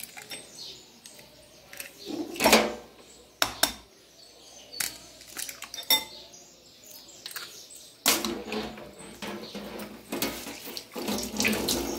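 Eggs being cracked on a ceramic bowl with a metal fork in it: a few separate sharp taps and clinks, the loudest about two and a half seconds in. From about eight seconds in comes a denser, continuous clatter and rustle of handling.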